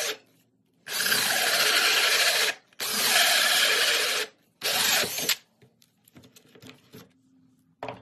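Ryobi cordless drill driving a 4-inch hole saw through a sheet of board, run in three bursts with brief stops, the last one short, as the drill struggles with the big saw. Faint clicks and rustles follow as the saw comes free of the cut.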